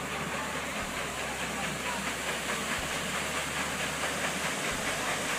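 Steam paddle steamer PS Pyap under way on the river, a steady rushing, hissing noise of the boat running.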